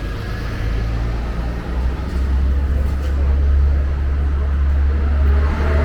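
A loud, deep, steady rumble that swells about two seconds in and holds.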